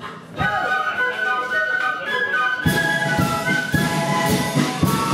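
A flute band playing a tune: piccolos carry the melody, and drums join in about two and a half seconds in.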